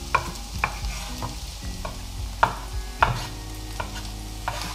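A chef's knife slicing button mushrooms on a bamboo cutting board: sharp knocks of the blade on the wood at an uneven pace, one or two a second. Vegetables frying in a pan sizzle steadily underneath.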